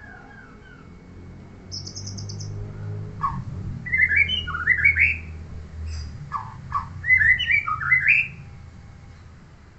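Pet songbird singing: a short high trill, then two bursts of quick rising whistled notes, with a low rumble underneath.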